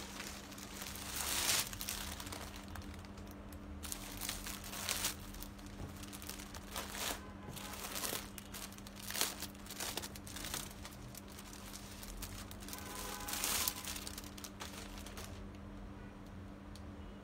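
Crinkling and rustling of material being handled, in irregular bursts, over a steady low hum.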